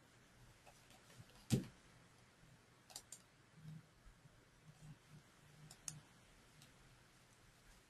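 A few sharp computer mouse clicks against quiet room tone: the loudest about a second and a half in, a quick double click about three seconds in, and another near six seconds.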